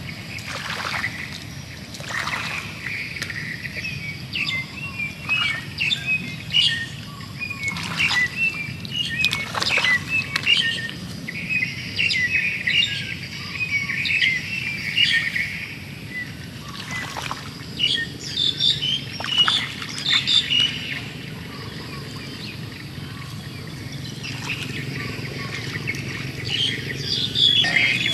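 Small birds chirping and calling throughout over a steady outdoor background, with brief rustles in the grass every few seconds.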